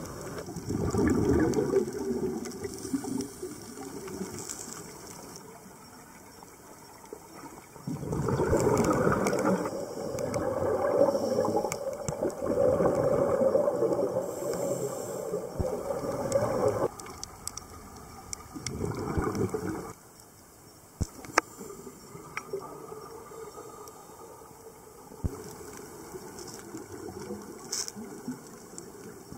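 Scuba regulator exhaust bubbles heard underwater, coming in rushing, gurgling bursts of a few seconds each with quieter gaps between breaths. A few sharp clicks sound in the last third.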